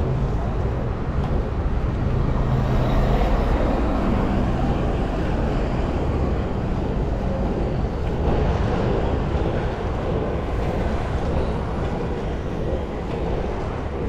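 Inline skate wheels rolling over street asphalt at speed, a steady rumble and rush, with a faint low hum in the first few seconds.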